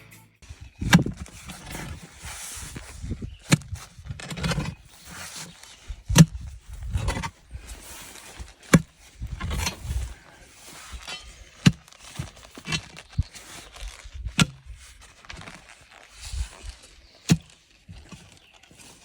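Hand digging tool driven into dirt to dig a post hole: a sharp thunk about every three seconds, about seven in all, with soil crunching and scraping between strikes.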